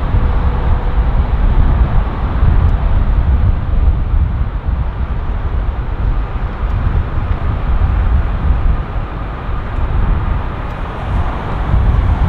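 Jet engine rumble from an Airbus A340-300 with four CFM56-5 engines, a loud, steady noise that dips slightly near the end before picking up again.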